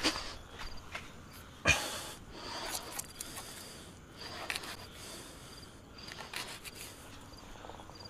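Crickets or similar insects chirping faintly in a broken high-pitched trill, with one sharp knock about one and a half seconds in and a few light clicks.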